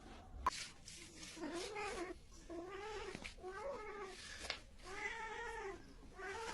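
A cat yowling over and over: about four drawn-out calls that each rise and fall in pitch, with a sharp click about half a second in and another near the end.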